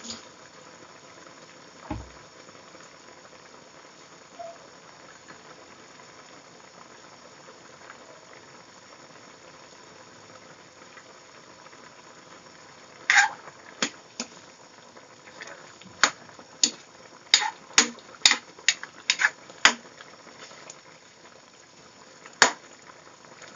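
Soup boiling hard in a pot, a steady bubbling hiss. From about halfway comes a run of sharp clinks and knocks, with one more near the end: a ladle knocking against the pot as the soup is stirred.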